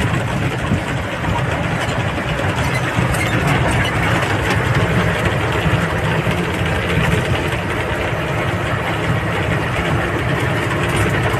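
Vehicle engine running steadily, heard from inside the cab, with a low, even drone and no change in speed.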